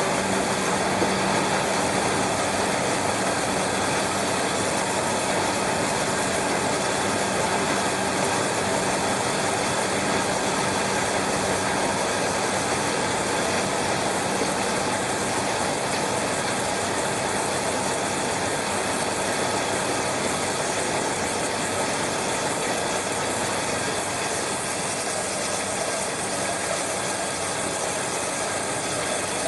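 Aerosol tin can vacuum leak tester running steadily: a continuous mechanical whir with a low steady hum.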